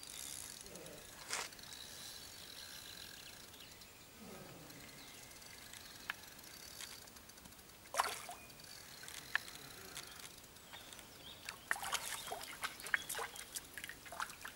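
Hooked roach splashing at the water's surface as it is played in on a light float rod, a run of short splashes near the end, with a single sharp click about halfway through.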